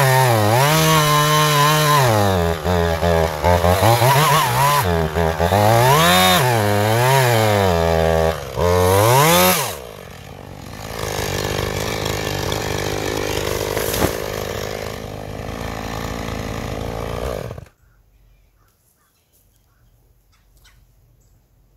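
Gas chainsaw cutting into a live oak trunk, its engine revving up and down repeatedly under load for about ten seconds before the pitch falls away. A quieter, steady rushing noise follows, with one sharp crack in the middle, and it cuts off abruptly near the end.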